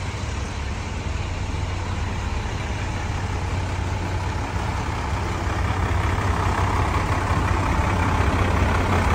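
Fire engines idling close by: a steady low engine hum under a broad rush that grows a little louder in the second half.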